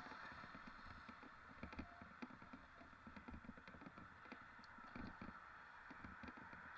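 Faint, muffled irregular knocks and light rattles over a steady hiss, as from a mountain bike being ridden over rough ground.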